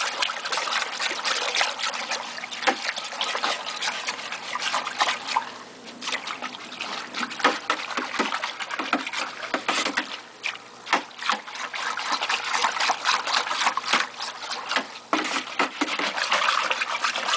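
A whisk stirring liquid in a plastic bucket: water splashing, sloshing and trickling irregularly, with brief pauses in the stirring, over the bubbling of an aquarium air stone aerating the compost tea.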